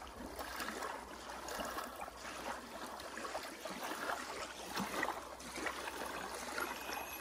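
Small waves lapping on a sandy lake shore, a soft, steady wash of water.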